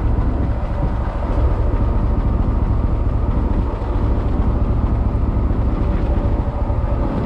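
Fishing boat's engine running steadily under way, a low drone with no breaks.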